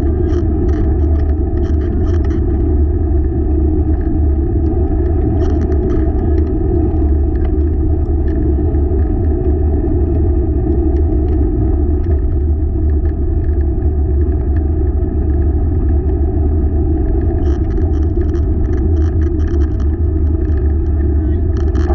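Steady low rumble of a dog-racing rig (a wheeled cart pulled by a four-dog team) rolling along the trail, with light rattles now and then.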